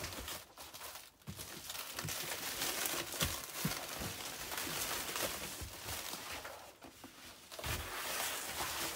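Black plastic bag wrapping being cut with a knife and torn and pulled off a cardboard box, crinkling and rustling, with a few soft knocks of the box against the table.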